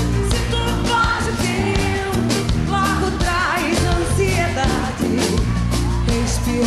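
Live band music with a steady, heavy bass line and regular drum hits, with singing over it.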